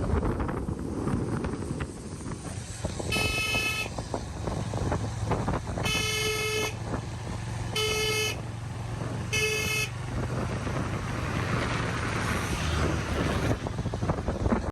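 Vehicle horn honking four times in short blasts, the first alone and the last three close together, over the steady rumble of a vehicle travelling on the road.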